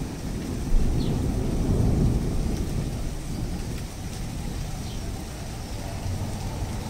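Thunder rumbling in a long roll that swells over the first couple of seconds and then settles into a lower rumble.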